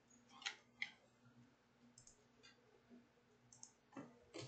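A few faint, sharp computer mouse clicks against near silence, the clearest two about half a second and a second in, with smaller ones later.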